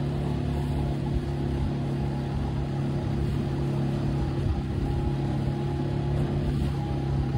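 A small boat's motor running at a steady speed: an even, continuous low hum.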